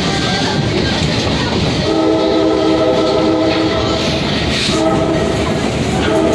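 Train running on the rails with steady rolling and clatter while its horn sounds a chord-like blast: a long one about two seconds in, a short one, then another long one starting near the end.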